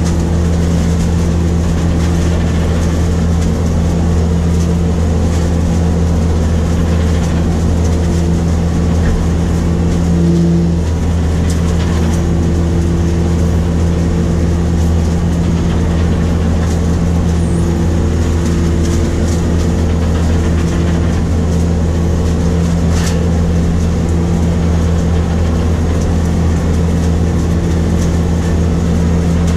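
New Holland grape harvester running steadily as it works along the vine row, a constant, even engine-and-machinery drone heard from inside the cab.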